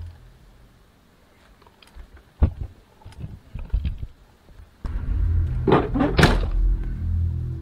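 Knocks and thumps of someone rummaging inside a car, then the car door slammed shut about six seconds in, the loudest sound. A low droning score comes in shortly before the slam.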